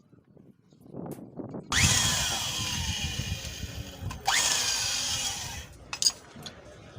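Electric hand drill run in two bursts, each spinning up with a rising whine that sags as the bit cuts into a bolt hole in a motorcycle cylinder head.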